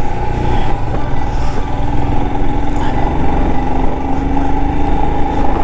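Motorcycle engine running steadily under way, a continuous drone over a heavy low rumble, its note rising a little about four seconds in.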